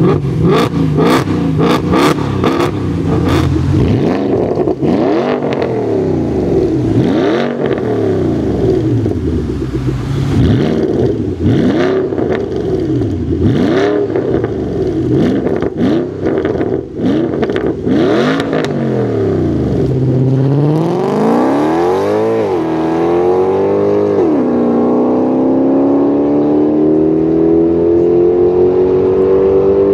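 Car engines revved hard, one clip after another: a Mercedes C63 AMG's V8 popping and crackling at first, then a series of repeated rev blips rising and falling. In the last third a car accelerates hard, its pitch climbing with two quick upshifts into a long rising pull.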